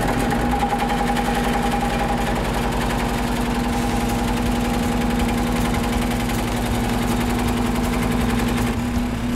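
Pullmax sheet-metal machine running steadily, its ram reciprocating rapidly as bead dies work a bead into a sheet-metal floor pan panel fed along a fence. A steady motor hum runs under the fast, even strokes.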